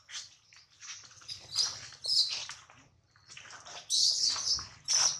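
Newborn macaque crying in repeated shrill, high-pitched squeals, loudest about two seconds in and again near the end.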